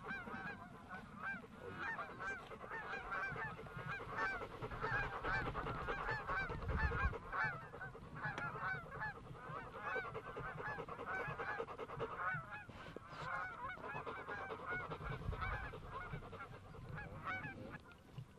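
A large flock of geese honking, many calls overlapping in a continuous chatter that thins briefly about twelve seconds in. Two low rumbles come about seven and fifteen seconds in.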